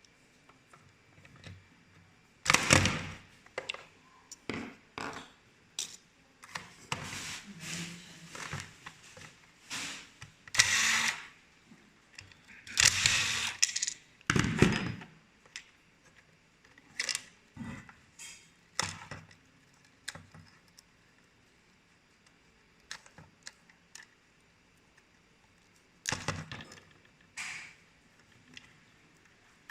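Small plastic parts and tools being handled at close range: irregular clicks, knocks and short scraping rustles, with quiet pauses between, as the RC boat's hull, motor and circuit board are worked on.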